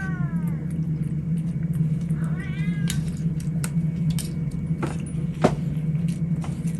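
A cat meows twice: one meow trails off at the start, another comes about two and a half seconds in. Then come sharp clicks about every half second, the loudest one around five and a half seconds in, over a steady low hum.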